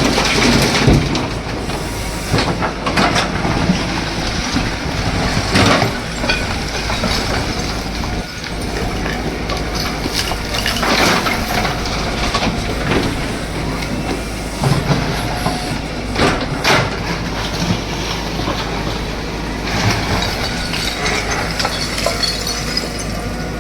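A heavy machine's engine running steadily under irregular crunches and knocks of a house being demolished, the loudest cracks about a second in, near 6 seconds, near 11 and near 16 seconds.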